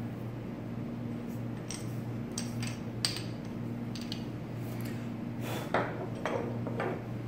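Scattered light clicks and clinks as the metal crank handle of a Sizzix Big Kick die-cutting machine is handled and laid down on a wooden table, with a few louder knocks about six seconds in.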